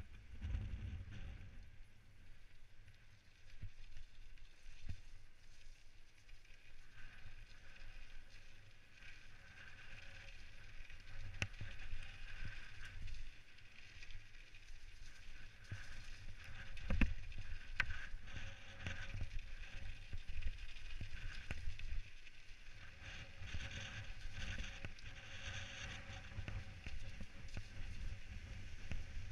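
Specialized Stumpjumper mountain bike running fast down a dirt and stone singletrack: tyres rolling over the rough surface, the bike rattling, and wind rumbling over a helmet-mounted camera's microphone. Sharp knocks from bumps come through, the loudest about 17 seconds in.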